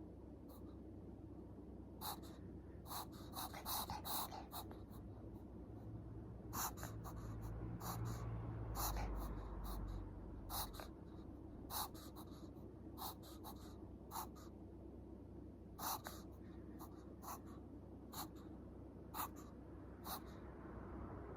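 A Chihuahua during a mild reverse-sneezing episode: irregular short clicky snorts, about one every second or two, with faint snuffling breaths between them.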